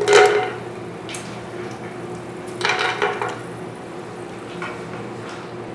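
Cashew nuts dropped into hot oil with whole spices in a non-stick pot, sizzling briefly as the biryani tempering fries, with a second short burst about two and a half seconds in. A steady low hum runs underneath.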